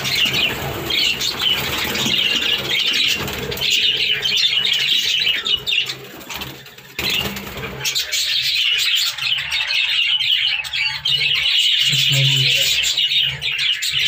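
A flock of budgerigars in a breeding colony chattering and warbling without a break. The chatter dips briefly about six seconds in and then picks up again.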